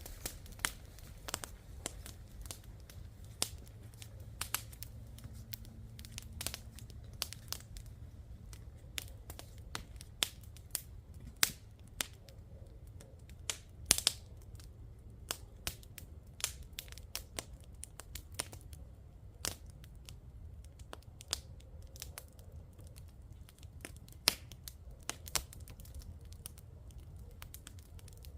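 Wood campfire crackling: irregular sharp pops and snaps, a few of them loud, over a steady low rumble.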